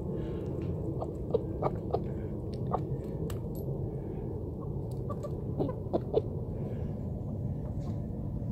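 Malay chicken pecking at feed on the ground: short, sharp beak taps in two clusters, one from about a second in and one around six seconds. A steady low rumble runs beneath.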